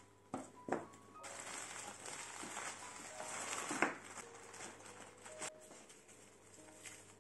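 Plastic zip-lock bag crinkling and rustling as hands take fruit pieces out of it, with a couple of sharp clicks near the start and a knock about four seconds in as a piece drops into a glass tumbler.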